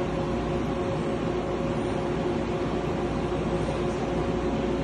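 Steady drone of running PCB assembly machinery, including an automatic solder paste stencil printer, with a few constant humming tones and no distinct mechanical events.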